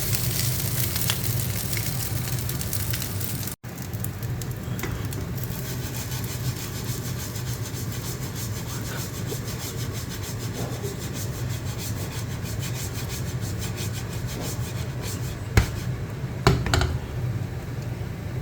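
Kitchen cooking noise: rubbing and scraping over a steady low hum, with a few sharp knocks near the end.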